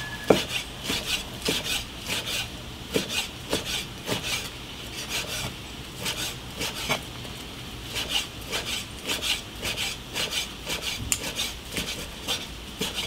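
Kitchen knife slicing beef on a wooden cutting board, a steady run of short scraping strokes, about two to three a second.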